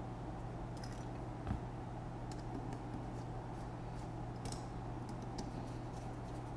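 Scattered small clicks and taps of carbon-fibre drone frame parts and a screwdriver being handled and fitted together, with a soft knock about one and a half seconds in, over a steady low hum.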